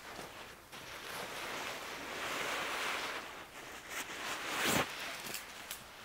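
Amok hammock's fabric and mesh rustling and swishing as it is pulled out of its stuff sack, with one louder swish about three-quarters of the way through.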